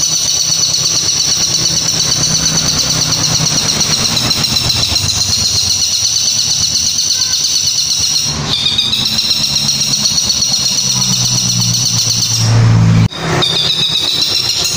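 Caged long-tailed shrike (cendet) singing a continuous, high, rapid chattering song. It breaks off briefly a bit past halfway. Near the end a louder noisy burst interrupts it. The owner asks whether the song is a mimicked 'kuntilanak' call or a tengkek buto kingfisher.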